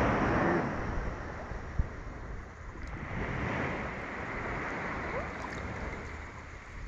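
Steady rushing noise of waves and wind along the shore, with one short thump about two seconds in.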